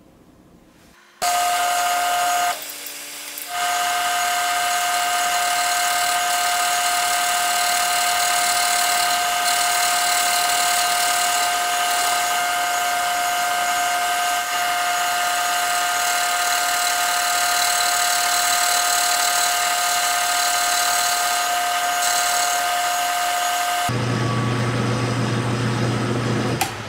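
Milling machine end mill cutting flats into the side of a cast-iron lathe cross slide: a loud, steady machining whine with one strong tone, starting about a second in and briefly dropping off a couple of seconds later. For the last few seconds it changes to a lower-pitched hum.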